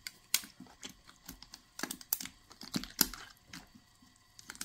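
Plastic debubbler stick clicking and scraping against the glass jar and the packed squash slices as it is worked down through the brine to free air bubbles: a few irregular sharp clicks and knocks, the strongest about two and three seconds in.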